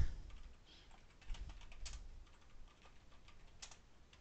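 Computer keyboard typing: faint, irregular keystrokes.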